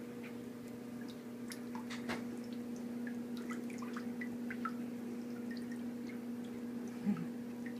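Shallow bathwater dripping and splashing lightly as wet pet hedgehogs are lifted and move about in a bathtub: scattered small drips and clicks over a steady low hum, with one brief low sound near the end.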